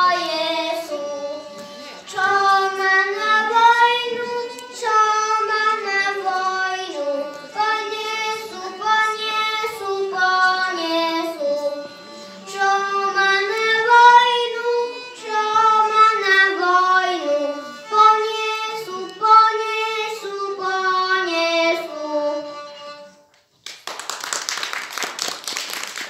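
A young boy singing a Slovak folk song, with a girl's violin accompanying him. The song ends about three seconds before the end, followed by a short rush of noise-like sound.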